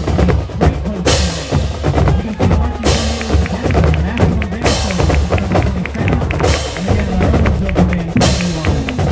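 Marching band playing: brass over a low bass line, with bass drums and a cymbal crash about every two seconds.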